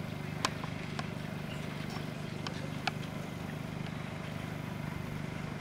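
A steady low motor hum, with a few faint clicks scattered over it.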